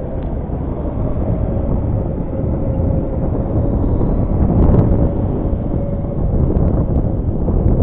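Wind rushing over the microphone while riding a Honda Scoopy motor scooter, with the steady drone of its engine and road noise underneath, swelling briefly about halfway through.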